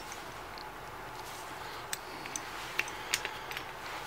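A few light, irregular clicks and taps of small carburetor parts being handled: the plastic float, needle and aluminium carburetor body of a Honda GCV160 knocking together, over a faint steady hiss.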